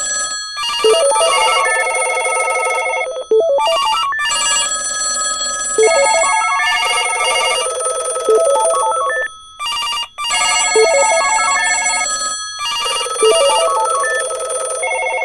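Many telephones ringing at once, a dense overlapping mix of trilling bells, electronic ring tones and short melodic ringtones, with a few brief dips where some of them pause between rings.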